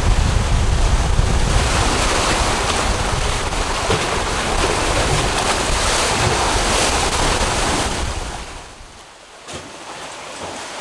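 Wind buffeting the microphone over choppy sea water rushing and splashing alongside a moving catamaran. The noise falls away sharply about eight seconds in, leaving a quieter rush.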